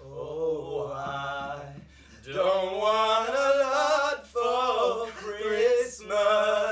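Two men singing a cappella in long held notes, in three phrases with short breaks about two seconds and four seconds in.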